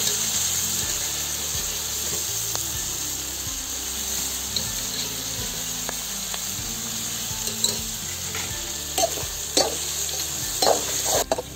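Boiled mutton pieces sizzling in hot oil and masala in a metal kadai, just added to the tempering. The sizzle is loudest at first and eases a little, and over the last few seconds a metal spatula scrapes and stirs the pan in short strokes.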